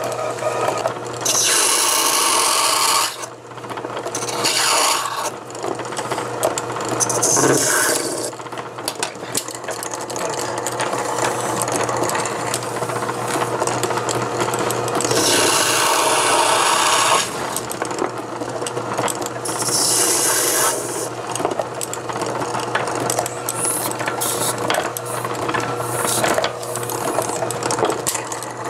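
Small bench lathe running with a steady hum while a hand-held tool is pressed against a spinning fountain pen part, giving hissing, rasping cutting sounds in bursts of a second or two.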